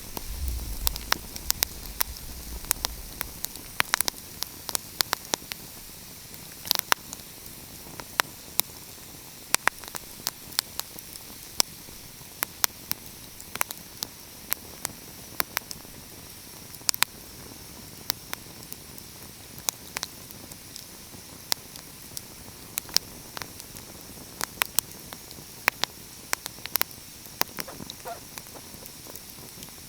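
Wood fire crackling: irregular sharp pops and snaps, several a second at times, over a steady soft hiss. A low rumble sits under it for the first few seconds.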